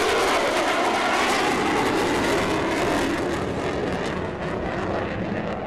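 F-16 fighter's single jet engine roaring loudly as the jet passes and flies away, the pitch sliding gently down and the roar fading slightly near the end.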